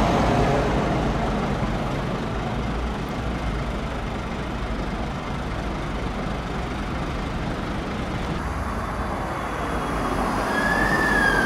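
Steady rumble of road traffic and an idling diesel engine, louder at the start as a vehicle drives past. About a second before the end, a siren starts to sound.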